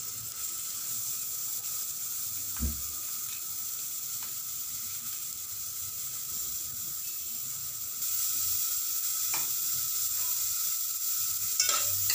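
Chopped onion sizzling in hot oil in a pot as ginger-garlic paste is added. The sizzle gets louder about eight seconds in. There is a single knock about two and a half seconds in and a few clicks near the end.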